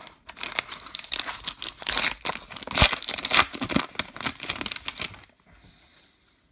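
Plastic wrapper of a 2024 Bowman baseball card pack being torn open and crinkled by hand: a dense run of crackling and tearing that stops about five seconds in.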